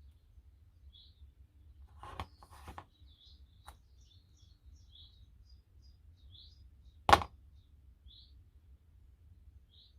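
A small bird chirping over and over, short high chirps every second or so, over a faint low hum. A few light knocks come about two to four seconds in, and a single loud sharp knock about seven seconds in.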